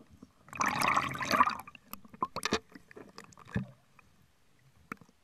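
River water splashing and sloshing right against the camera as the swimmer moves it. A loud splash lasts about a second, starting about half a second in, followed by smaller splashes and knocks that die away after about four seconds.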